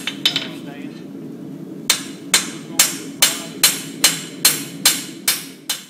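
Blacksmith's hammer striking steel on an anvil in a steady rhythm of about two blows a second, with a pause of a second and a half early on, then about ten more blows. A steady low hum runs underneath.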